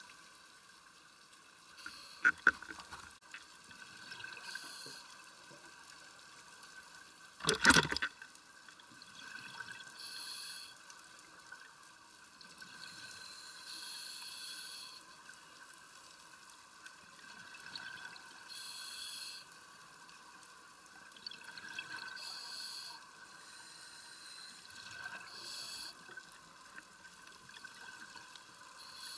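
Underwater sound of scuba breathing: bursts of exhaled regulator bubbles recurring every three to four seconds, over a faint steady hiss. There is a few clicks about two seconds in and a brief loud rush about eight seconds in.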